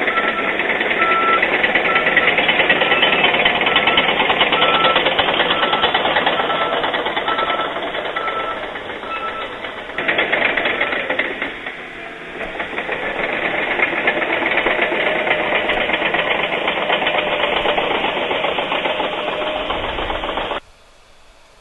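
A heavy diesel construction machine running close by with a dense, rapid mechanical clatter. A reversing alarm beeps steadily for about the first ten seconds, then stops. The sound cuts off abruptly near the end.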